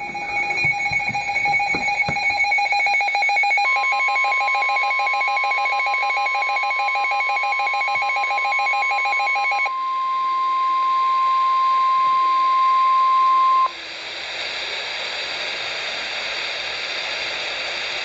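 NOAA weather alert radio sounding its alarm: a rapid electronic beeping for nearly ten seconds, joined about four seconds in by the steady 1050 Hz Weather Radio warning tone. The tone cuts off sharply after ten seconds, leaving the radio's static hiss. The tone signals that a warning broadcast follows.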